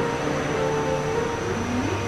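Slow background music of held notes that change pitch every half second or so, over a steady hiss.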